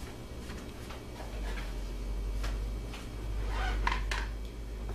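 Kitchen handling noises: scattered light clicks, then a short clatter of knocks near the end as a clear plastic container is set down on the countertop, over a low steady hum.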